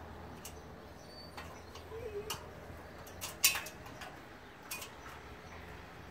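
Sharp metallic clicks and knocks from an aluminium folding ladder as a giant schnauzer shifts its paws and claws on the rungs, a handful spread over several seconds, the loudest about three and a half seconds in.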